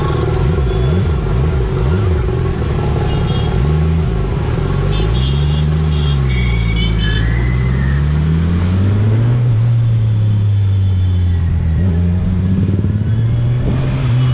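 Ducati Multistrada's engine pulling through slow traffic, its note rising and falling with the throttle over and over, then settling into a steady drone from about nine seconds in. A few short high-pitched tones sound in the background midway.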